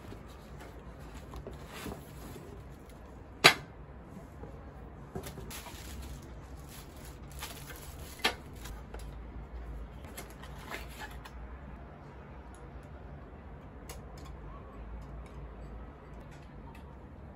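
Unpacking a candle warmer lamp from a cardboard box: cardboard and packaging rustling, with a sharp knock about three and a half seconds in and a smaller one about eight seconds in as its parts are handled and put together, then quieter handling.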